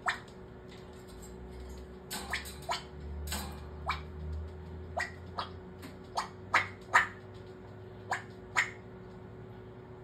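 African grey parrot making short, sharp popping noises, about a dozen at uneven intervals, the loudest a little past the middle.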